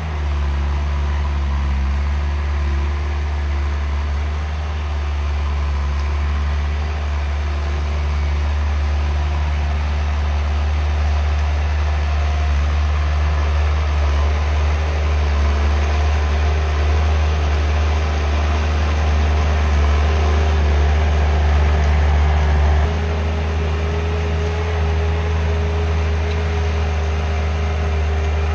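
Skid steer engine running steadily under work. Its note changes and the level drops a little about three-quarters of the way through.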